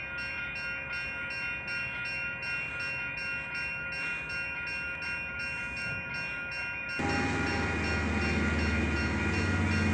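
Safetran electronic level-crossing bell ringing rapidly, about three strokes a second. About seven seconds in, a loud low rumble from an approaching KiwiRail DL-class diesel-electric locomotive comes in suddenly under the bell.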